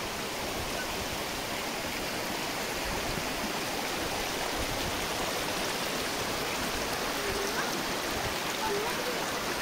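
Shallow rocky mountain stream running over stones: a steady rush of water.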